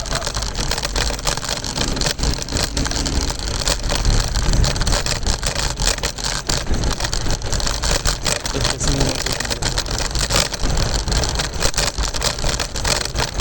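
Riding noise from a moving scooter: wind rumbling on the microphone, with frequent clicks and knocks from the deck and wheels rolling over the pavement.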